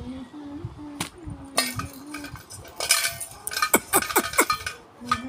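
Stainless steel pot clattering and clinking as a toddler's hands knock things about inside it. It comes in several runs of quick metallic strikes and is busiest from about three to four and a half seconds in.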